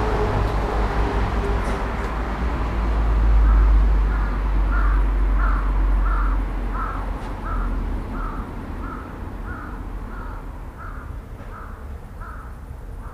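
A crow cawing over and over, more than a dozen caws at about two a second, starting about four seconds in, over a low rumble that fades after the first half.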